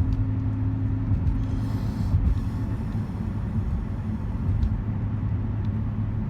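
Road noise heard from inside a moving car: a steady low rumble of the engine and tyres.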